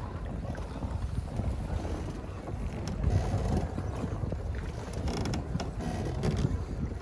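Wind rumbling on the microphone over creaking from the floating fishing raft as it rocks on the waves.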